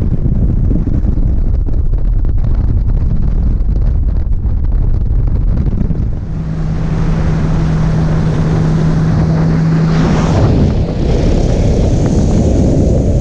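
Heavy wind buffeting the microphone on a boat under way, with a steady motor hum from about six to ten seconds in, then a brighter rushing hiss of wind and water.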